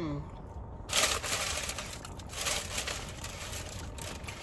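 Close-miked crinkling of paper or plastic food packaging, starting abruptly about a second in and running on as a dense crackle.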